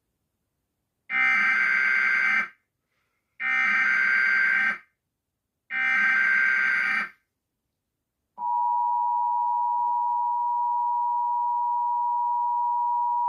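Emergency Alert System broadcast tones. First come three bursts of SAME digital data header, each about a second and a half long. Then, about eight seconds in, the steady two-tone attention signal (853 and 960 Hz together) begins and holds, announcing a tornado warning.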